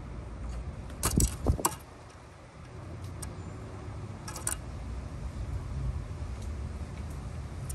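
A blue jay landing on the wooden ledge beside a peanut dish: a few sharp knocks and thumps about a second in, then a few lighter clicks and taps, over a steady low background rumble.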